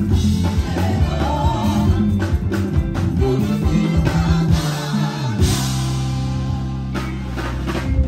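Live band playing, led by a Fender electric bass with congas and drums: busy bass lines with drum hits, then about five and a half seconds in the band settles on one held chord that rings on steadily.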